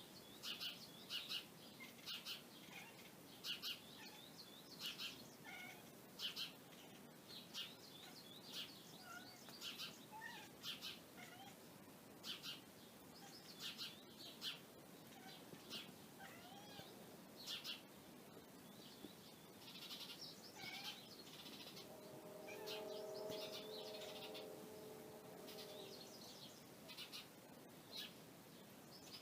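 Small birds chirping in short, high calls repeated every second or so. A cat answers with a drawn-out, meow-like chattering call about three quarters of the way through.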